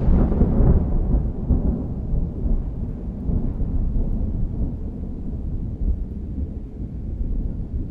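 Rolling thunder: a long, deep rumble that carries on from a crack just before and slowly dies away.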